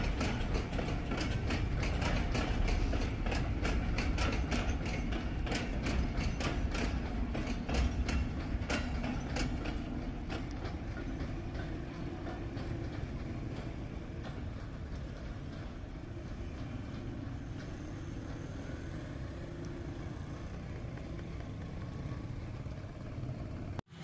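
Empty freight hopper wagons rolling past, their steel wheels clattering irregularly over the rail joints above a low rumble. The clatter thins out about ten seconds in as the brake van passes, leaving a fainter, steadier rumble from the receding train.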